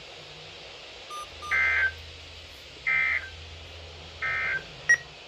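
Three short bursts of NOAA Weather Radio SAME digital data tones, warbling between two pitches, each about a third of a second long and a little over a second apart: the end-of-message code that closes the weekly test. A brief sharp click comes near the end.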